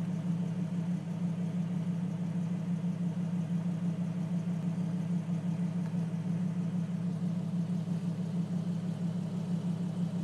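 A steady low mechanical hum that holds an even pitch and level throughout, like a motor running at idle.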